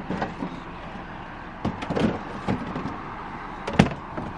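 Scattered knocks and clunks of junk and buckets being moved about in a curbside trash pile, the sharpest one near the end, over a steady background of outdoor noise.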